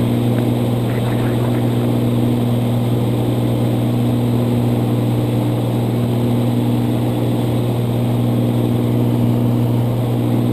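Cirrus SR22's piston engine and propeller running steadily in cruise flight, a constant low hum with even noise over it.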